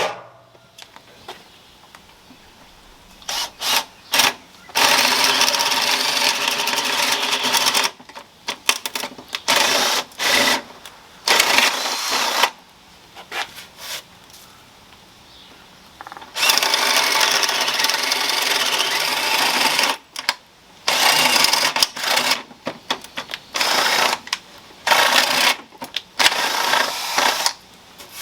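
Power drill boring starter holes through a 2x12 yellow pine board for a jigsaw cut. It runs in about six bursts of one to four seconds, with short pauses between.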